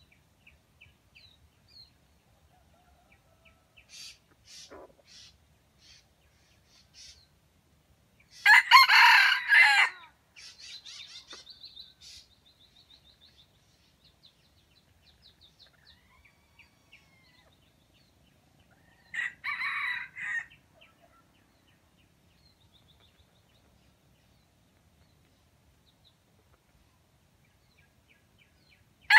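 Red junglefowl (wild chicken) rooster crowing: one loud crow about nine seconds in, and a second, quieter crow about twenty seconds in. Small bird chirps are scattered between the crows.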